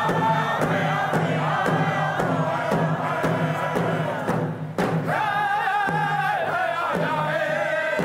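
Indigenous singers chanting together over steady beats on hand-held frame drums, about two strokes a second. The sound breaks off briefly a little past halfway, then the voices come back on a high held line.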